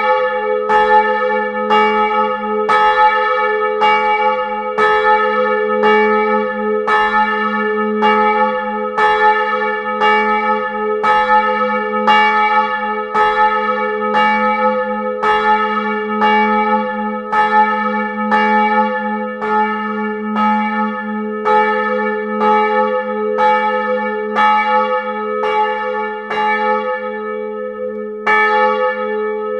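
A 92 cm bronze church bell, cast in 1985 by the Karlsruher Glockengießerei with strike note A-flat (as'), swinging and ringing in its tower. Its clapper strikes about once a second, each stroke ringing on over a steady low hum note. The strokes break off briefly near the end and then resume.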